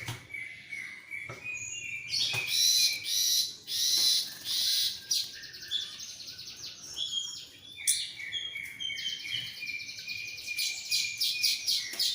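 Orange-headed thrush singing a varied song. Runs of short, clear repeated notes alternate with louder, rapid, high chattering trills.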